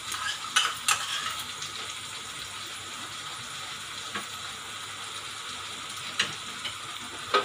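Onion and capsicum sizzling steadily in a wok on a gas stove, with a few sharp clicks of a metal spoon against the pan and the ketchup bowl as ketchup is spooned in.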